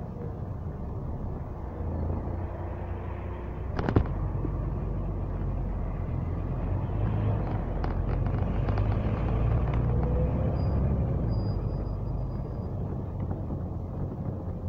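Double-decker bus driving, heard from inside the upper deck: a steady low engine and road rumble that swells a little midway, with a single sharp knock about four seconds in and a few lighter rattles later.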